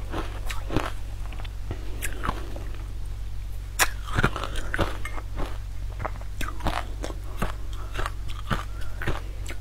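Close-up crunchy chewing and biting of a sweet: irregular crisp crackles and clicks as the food is chewed, over a steady low electrical hum.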